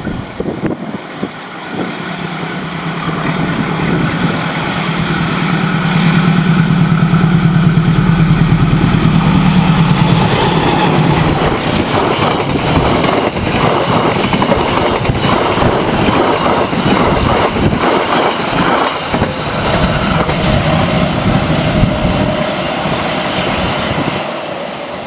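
KAI diesel-electric locomotive hauling a passenger train past at speed: the engine drone builds up and peaks, then the coaches go by with a rapid clatter of wheels on the rails, fading near the end.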